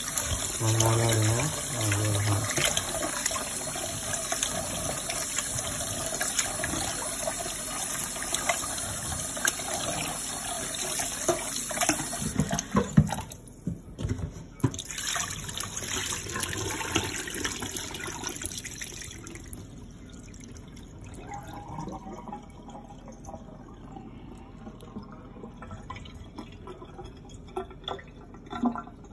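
Kitchen tap running into a stainless steel pot while a hand swishes brown rice around in the water to rinse it. About twelve seconds in the tap shuts off, leaving quieter sloshing and pouring as the rinse water is drained from the rice, with a few light knocks near the end.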